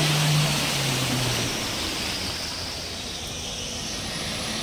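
Rushing water noise of rain and vehicles wading through a deeply flooded street, loudest at the start and easing off, with a low steady engine drone over the first second and a half.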